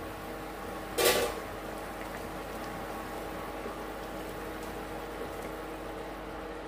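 Prawn curry at a full boil in a stainless steel pan, bubbling steadily while it is stirred with a wooden spoon. About a second in, the steel lid clatters briefly as it is taken off.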